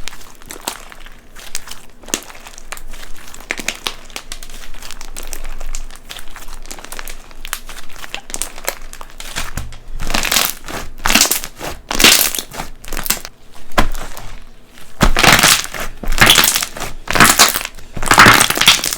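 Slime packed with Perler beads being squeezed and pressed by hand, the beads crackling and crunching in a dense stream of small clicks. About halfway through the squeezes get louder, each one a separate crunch, coming about once a second near the end.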